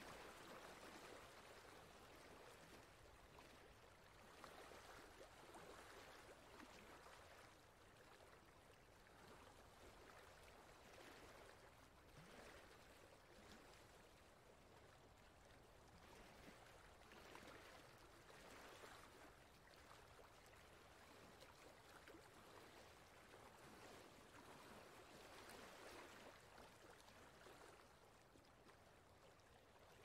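Faint, steady rush of a shallow rocky forest stream flowing over stones, swelling and easing gently every few seconds.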